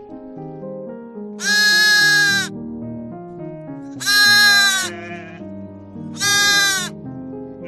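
Sheep bleating: three loud calls, about two seconds apart, each under a second long, over steady background music.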